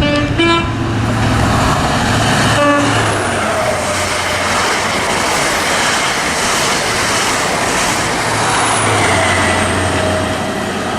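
High Speed Train (InterCity 125) passing through the station at speed. Its horn sounds with a two-note blast at the start and one short note about three seconds in. The rush of the passing train follows, with the diesel drone of the front power car early on and of the rear power car near the end.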